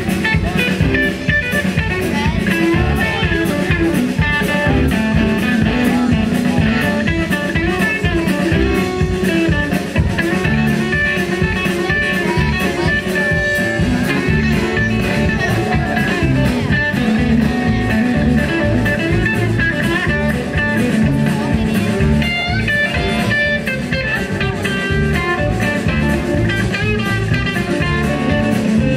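Blues-rock music with guitar and drums playing to a steady beat.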